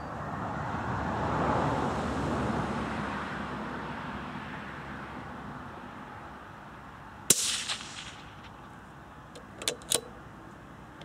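A single suppressed shot from a CZ .17 HMR rifle about seven seconds in: a sharp crack with a short ringing tail. A couple of seconds later come two quick metallic clicks. Before the shot, a rushing noise swells and fades over the first few seconds.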